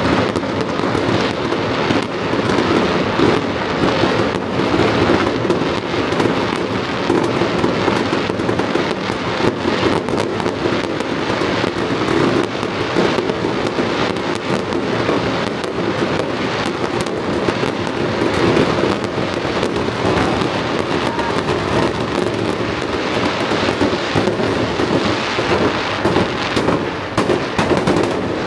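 Fireworks going off in an unbroken barrage: many bangs and crackles overlapping with no pause.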